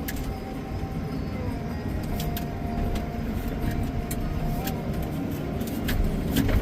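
Tractor engine running steadily at a low rumble, with a few light clicks and rattles.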